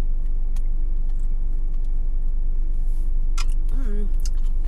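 Car engine idling, a steady low hum heard inside the parked car's cabin, with a faint steady tone above it.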